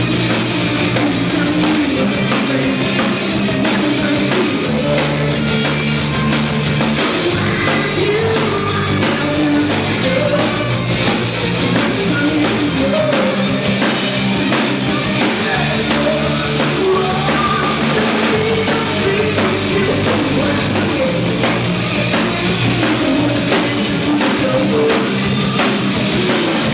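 Rock band playing: a drum kit with constant cymbal hits, electric guitars and bass guitar, with singing.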